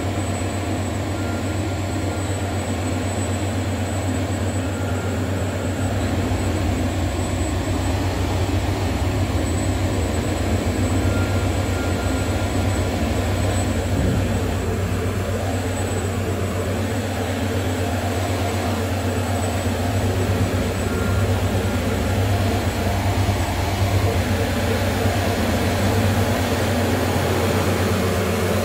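Experimental improvised music: a dense, steady low drone with many held tones layered above it, growing a little louder about six seconds in.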